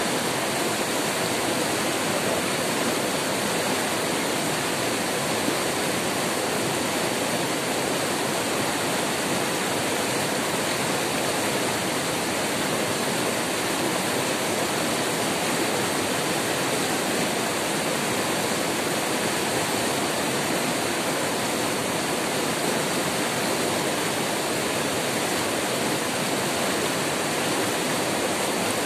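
White-water river rapids rushing over boulders: a steady, unbroken wash of water noise.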